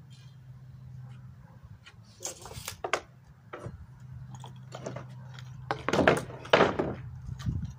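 Wooden speaker-box panels being handled and rubbed against each other: a series of short scraping and rubbing noises, loudest twice around six seconds in, over a steady low hum.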